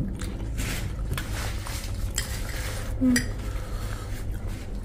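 Metal fork scraping and clinking on a ceramic plate as spicy chatpate is scooped up, with several sharp clinks spread through. About three seconds in comes a brief low tone with a click, the loudest moment.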